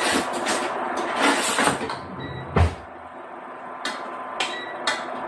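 Kitchen handling sounds: about two seconds of loud rustling and scuffling noise, then a single dull thump, then three or four light clicks as a pot on the stove is handled.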